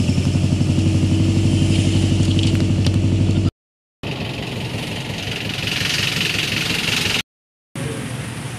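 Passenger van's engine running, heard from inside the cabin: a loud, steady low drone with a fast pulse. It cuts off abruptly after about three and a half seconds, and steady, quieter, even background noise follows for the rest.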